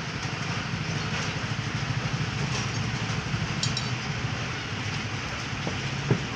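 A steady low mechanical rumble with a fast flutter, with a light clink about three and a half seconds in and a tap near the end.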